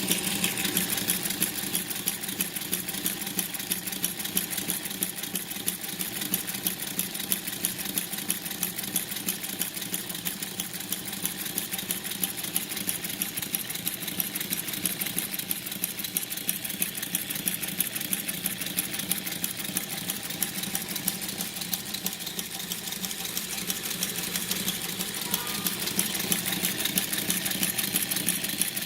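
High-speed industrial single-needle sewing machine, set up for pleating, running steadily, its needle stitching in a rapid, even rhythm.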